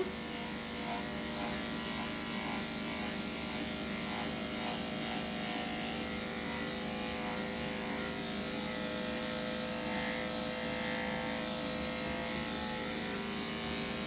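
Corded electric dog grooming clipper with a #10 blade running with a steady hum, shaving the short hair under a dog's tail.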